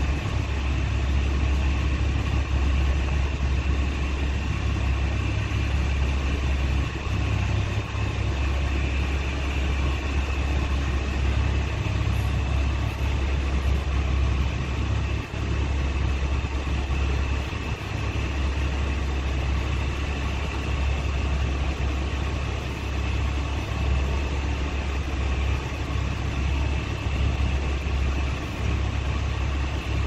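Fishing boat's engine running steadily: a continuous low drone with an even hiss above it and no break.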